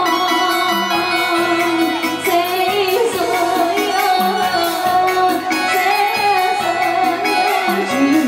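A woman singing a Vietnamese folk song over instrumental backing music, with long, wavering held notes.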